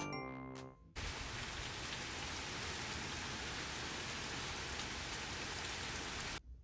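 Steady rain falling, an even hiss that starts suddenly about a second in and cuts off sharply near the end.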